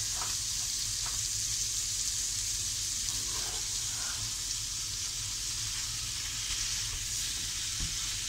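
Lamb mince sizzling steadily as it browns in a frying pan over high heat.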